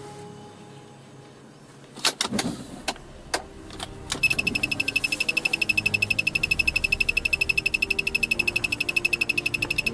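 A few sharp clicks and knocks, then a fast electronic beeping at one high pitch, about nine beeps a second, starting about four seconds in and running for about six seconds.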